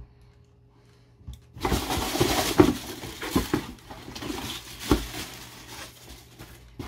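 Cardboard box and packaging handled while unboxing: a burst of rustling and scraping starts about a second and a half in, followed by scattered scrapes and knocks, the sharpest near the end.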